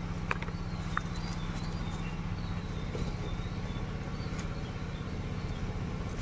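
Dry twigs and split wood being pushed into a clay mud stove as the fire catches and flares, with two sharp crackles or snaps in the first second over a steady low rumble.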